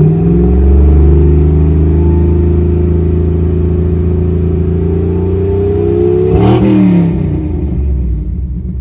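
1975 Ford F-100's engine, running on a newly fitted Edelbrock four-barrel carburetor, revving up and held at a steady raised speed for several seconds, then rising briefly and dropping back toward idle about six and a half seconds in. It pulls through the revs cleanly, with no hesitation, stutter or misfire.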